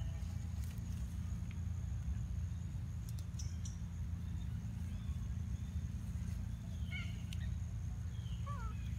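Outdoor ambience: a steady low rumble under a thin, steady high-pitched whine, with a few faint clicks and a few short chirps near the end.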